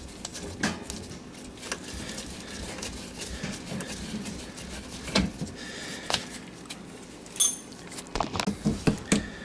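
Scattered clicks, knocks and metal clinks of hand tools and fittings being worked at a dishwasher's connections, with one brief ringing clink about two thirds in and a quick run of knocks near the end.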